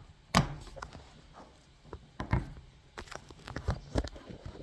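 A handful of separate knocks and clicks from objects being handled, spaced irregularly. The loudest comes about a third of a second in.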